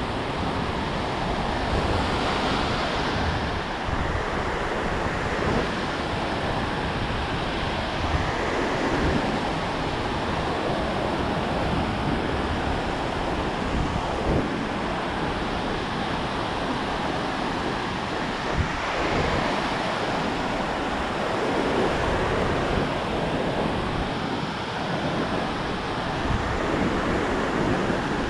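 Ocean surf breaking and washing up a sandy beach in a steady rush, with wind on the microphone.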